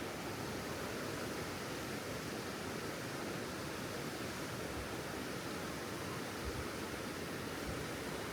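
Steady, even rushing noise with a few faint low thuds in the second half.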